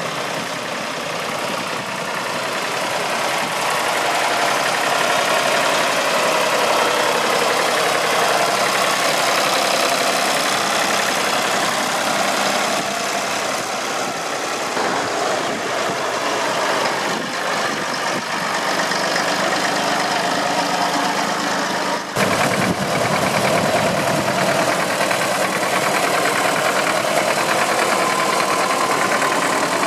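Vintage tractor engines running as a line of old tractors drives past, a steady continuous engine chug. The sound changes abruptly about 22 seconds in.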